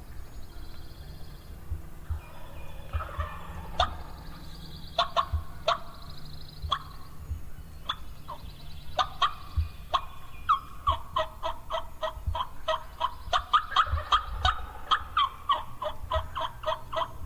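Wild turkey gobbler gobbling from the roost, repeated calls that build into a long, fast run of rattling notes in the second half. Faint songbird trills sound early on.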